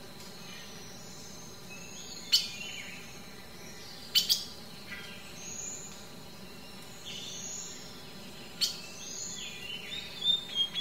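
Small birds chirping, with short whistled calls, some falling in pitch. A few sharp clicks stand out, about two, four and eight and a half seconds in.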